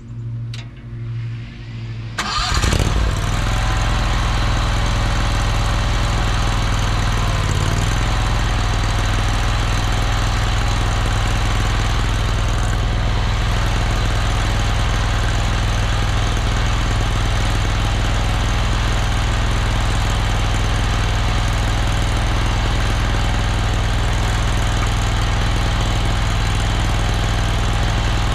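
Mini skid steer's engine cranking and catching about two seconds in, then running steadily, with a brief dip in speed near the eight-second mark.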